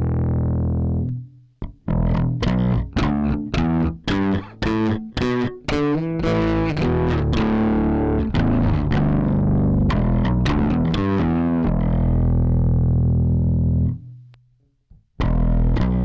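Yamaha BBNE2 electric bass played through an EBS MetalDrive distortion pedal, sounding heavily distorted. A held note fades out about a second in. A run of short, choppy notes follows, then longer held notes. The playing stops briefly near the end and starts again just before the end.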